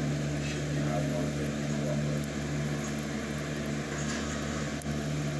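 Steady low mechanical hum with an even background hiss.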